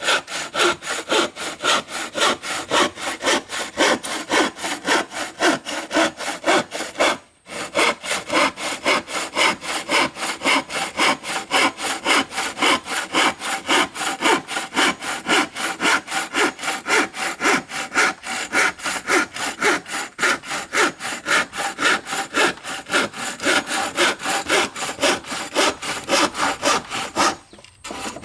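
Hand saw cutting through wood in quick, even back-and-forth strokes, with a short break about seven seconds in; the sawing stops just before the end.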